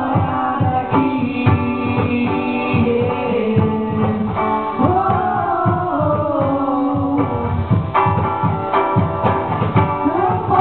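Live song: a voice singing over strummed acoustic guitar, with a steady hand-drum beat.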